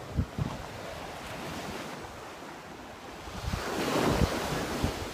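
Ocean surf washing onto a sand beach, swelling into a louder wash of a breaking wave about three and a half seconds in, with wind buffeting the microphone in low thumps.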